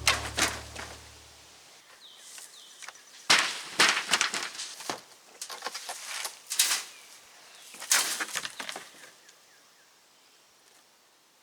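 Rotted wooden deck boards cracking and knocking as the deck is torn apart: irregular sharp snaps and clatters in clusters, the loudest about three to nine seconds in.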